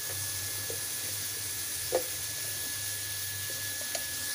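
Chopped onions and green chillies sizzling steadily in hot oil in a steel kadai. The steel spoon knocks against the pan once about two seconds in, and lightly again near the end.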